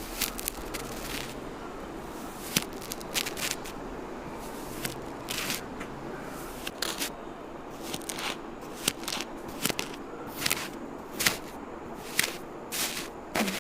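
Kinetic sand being cut and scraped, giving irregular crisp crunches and crackles about one or two a second.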